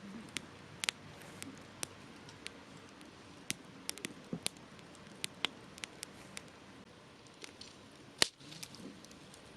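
Wood campfire crackling: irregular sharp pops and snaps over a soft hiss, with one much louder pop a little past eight seconds in.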